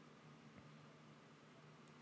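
Near silence: room tone with a faint steady low hum, and one short faint click near the end.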